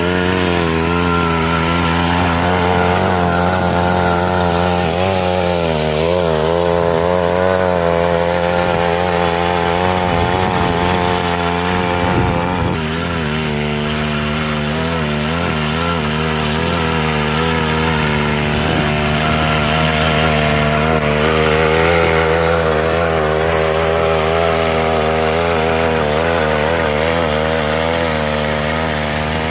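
3 hp two-stroke engine of a mini rotary tiller running continuously while its tines churn the soil, its pitch wavering now and then under the load of tilling.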